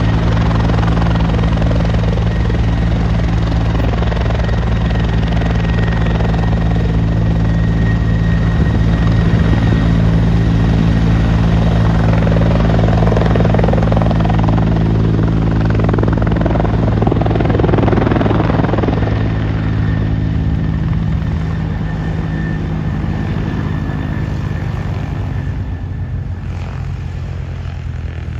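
Bell 412 twin-turbine helicopter running loud and steady, with a deep rotor beat and a faint high turbine whine. About two-thirds of the way in it starts to fade gradually as it flies away on departure.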